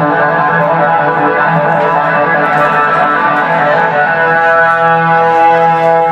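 Unaccompanied electric guitar solo played through an amplifier: a rapid run of notes, then from about four seconds in a single held note sustaining.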